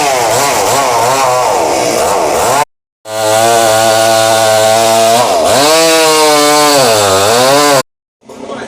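Chainsaw running at high revs, its pitch dipping and recovering as it bogs down in the wood. The sound cuts off abruptly about three seconds in and again near the end.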